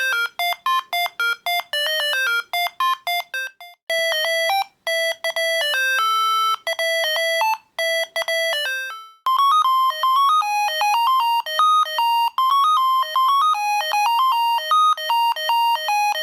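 Siemens A55 mobile phone ringtones playing one after another: synthesized melodies of short, quick beeping notes. A new tune starts about four seconds in and another about nine seconds in.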